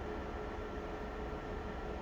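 Steady background hiss with a low hum and a few faint steady tones, unchanging throughout.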